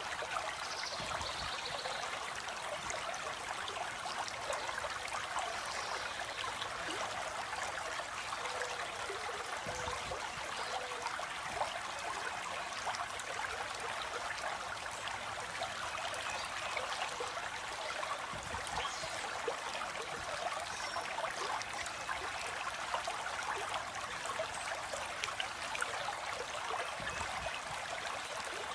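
A stream of water flowing and trickling over rocks, a steady even rush with no breaks.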